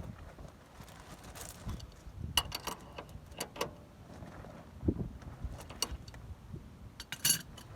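Light metallic clinks and taps of tools and parts being handled, in several short clusters, with a dull knock about five seconds in.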